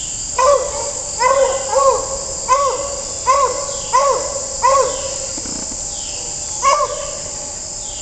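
Distant beagle baying: eight short, ringing bays, each rising and falling in pitch, come about every two-thirds of a second, then break off before one last bay near the end. A steady drone of crickets runs underneath.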